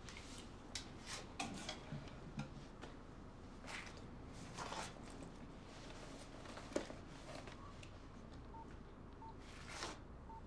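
Mobile phone keypad beeping as a number is dialled: three short single-pitch beeps near the end. Soft rustles and small clicks of handling come before them.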